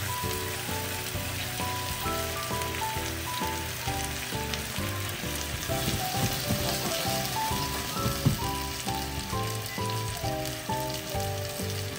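Chicken and leek yakitori skewers sizzling steadily in their sauce glaze in a frying pan, under light background music with a simple melody.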